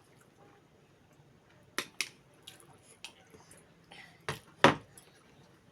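Sharp clicks and clinks of tableware during eating, about six separate strikes, the loudest two a little over four seconds in.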